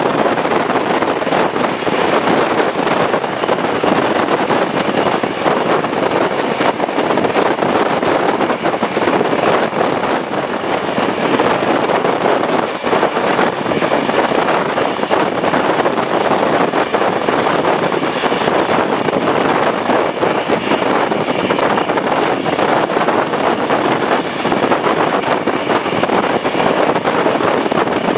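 Steam-hauled passenger train running at speed, heard from an open carriage window: a steady rush of wheels on rails with wind on the microphone.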